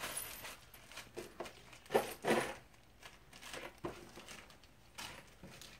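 Small plastic hardware bag crinkling and rustling in short spells as wall-mount screws are handled and sorted, loudest about two seconds in.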